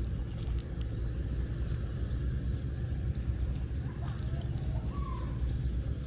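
A steady low rumble, with faint high chirping that pulses about four or five times a second in short trains.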